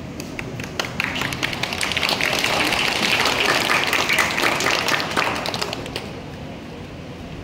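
Audience applauding, building up about a second in and dying away about six seconds in.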